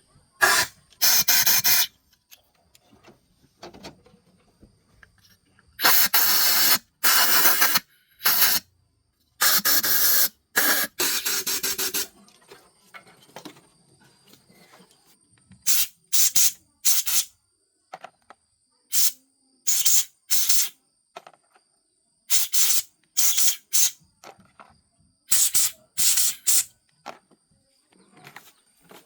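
Spray hissing from a nozzle in short repeated bursts, each about half a second to a second long, some in quick pairs or threes, with silent gaps between.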